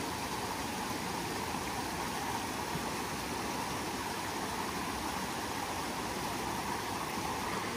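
Small rocky mountain stream running steadily over stones and a little cascade.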